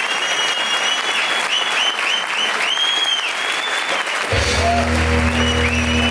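Audience applauding, with high whistles rising and falling over the clapping. About four seconds in, the next tango recording starts with steady sustained low notes under the continuing applause.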